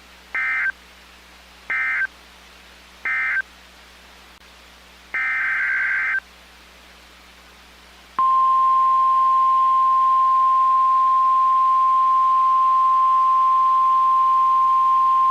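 Emergency Alert System signal on a weather radio broadcast: four bursts of shrill warbling data tones, the last about a second long, then, about eight seconds in, a single steady, loud alarm tone begins. It is the alert that introduces a new warning.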